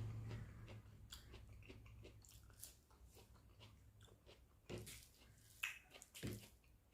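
Faint, close-miked eating sounds: chewing and biting of rice and egg curry, with small wet mouth clicks and a few louder ones in the second half. A low hum fades out in the first second.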